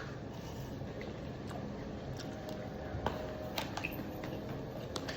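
Scattered light clicks and taps of eating, like utensils on plates, with a few sharper ones about three seconds in and near the end, over a steady low background hum.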